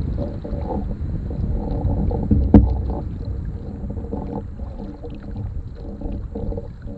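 Canoe paddling: a wooden paddle pulling through the water, with water sloshing along the canoe's hull over a low rumble. A single sharp knock about two and a half seconds in is the loudest sound.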